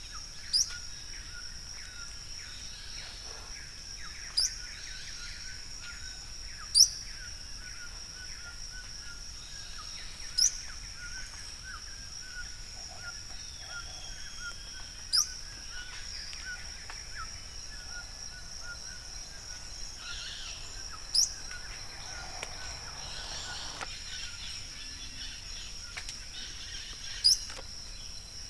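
Yellow-browed tody-flycatcher calling: seven single short, sharp, high-pitched notes a few seconds apart. Behind them runs a steady high hum with faint chirps of other birds.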